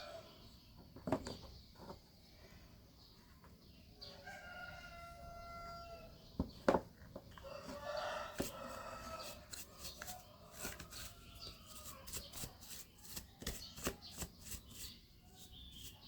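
A rooster crowing, a held call about four seconds in and another about eight seconds in. A run of short, sharp clicks and taps follows in the second half.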